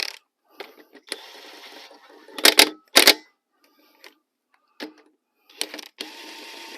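Lug nuts being started onto the wheel studs of a 2013 Cadillac CTS-V: a series of sharp metallic clacks, with two stretches of steady rasping about a second long, one after the first clack and one just before the last.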